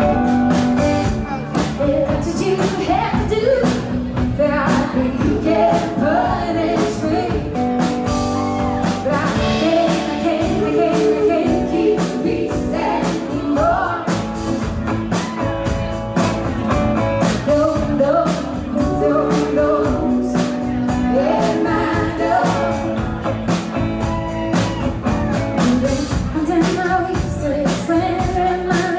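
Live band music: a woman sings lead over strummed acoustic guitar and electric bass, with a second woman singing backing harmony.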